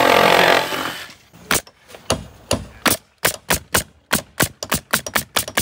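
A pneumatic coil nailer firing nails in quick succession into roof sheathing, sharp shots about three a second that come faster near the end. A steady machine noise fades out in the first second, before the nailing starts.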